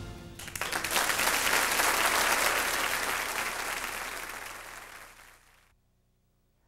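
Audience applauding, rising just as a brass band's final chord dies away and fading out about five and a half seconds in.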